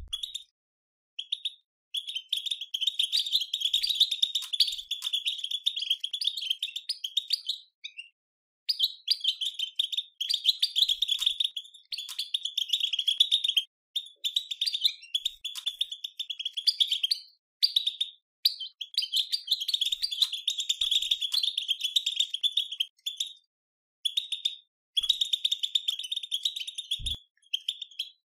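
European goldfinch twittering: a fast, dense, excited chatter (batbata) in bursts of a few seconds, broken by short pauses.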